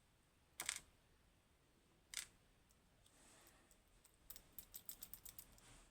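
Small sharp clicks from handling the metal parts of a disassembled lock with tools: two single clicks, then a quick run of about ten light clicks near the end.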